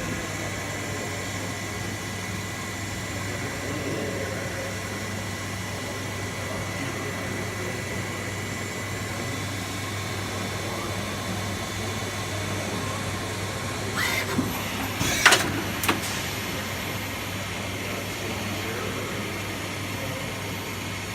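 Citizen K16VII CNC Swiss-type lathe running under power: a steady low hum with a thin, even high whine over it. About two-thirds of the way in come three short, sharp noises close together.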